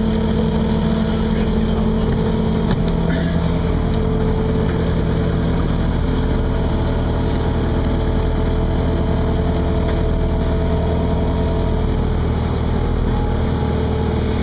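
A passenger boat's engine running steadily, a constant hum with a few held tones throughout.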